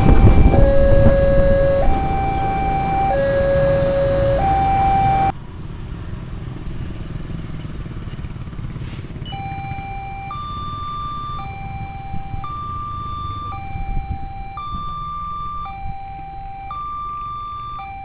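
Electronic two-tone railway level-crossing alarm, alternating between a high and a low tone about once a second. For the first five seconds it sounds over the loud rumble of a diesel train at the crossing. After a cut, another crossing's alarm plays the same pattern on a higher pair of tones over lighter traffic noise.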